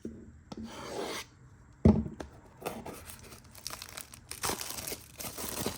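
Packaging on a trading-card box being torn open and crinkled, with irregular rustling and one sharp thump about two seconds in.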